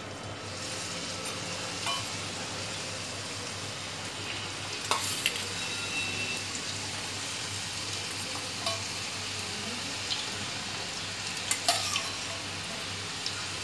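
Pieces of arbi (taro root) shallow-frying in hot oil in a small kadhai: a steady sizzle, with a few short clicks of a metal spatula against the pan.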